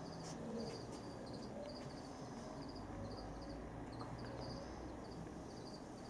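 Crickets chirping: short, high chirps repeating two or three times a second, over a steady low room hum.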